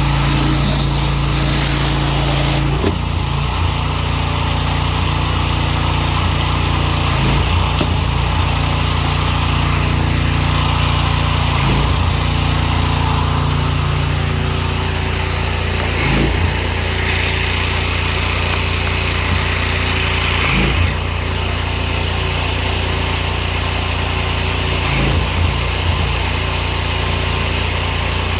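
Pressure washer running steadily, a small engine under a broad hiss, with brief changes in the engine note every few seconds.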